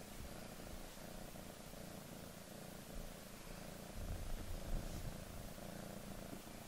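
Domestic cat purring loudly and steadily, a continuous low rumble that swells a little about four seconds in.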